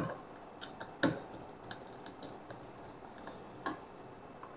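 Light clicks and taps of a small screwdriver and a laptop hard drive's metal case being handled as the screws on its back are undone: a dozen or so short ticks, the sharpest right at the start and about a second in.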